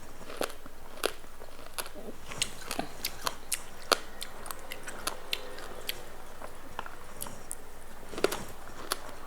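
A person biting and chewing crunchy food close to the microphone: irregular crisp crunches and clicks, several a second in places.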